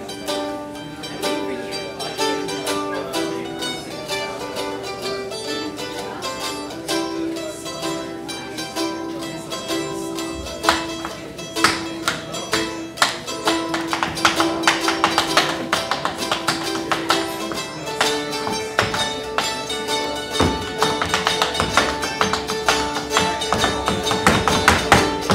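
Instrumental intro of a song with guitar, joined by tap shoes clicking on the floor. The first few taps come about ten seconds in, then quick runs of taps follow.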